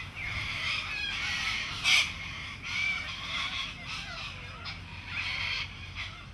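Wild birds calling and chirping, many short overlapping calls, with one sharp click about two seconds in.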